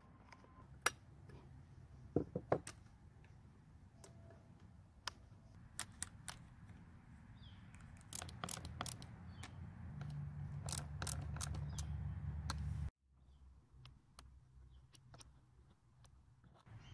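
Scattered clicks and taps of hands handling the chainsaw's plastic cover and metal carburetor throttle and choke linkage, some from pliers. A low rumble builds under them from about halfway through and cuts off suddenly a few seconds later.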